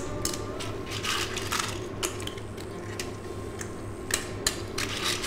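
Clam shells clicking against each other and the stainless steel pan as clams are dropped in one at a time, a series of irregular sharp clicks. A steady low hum runs underneath.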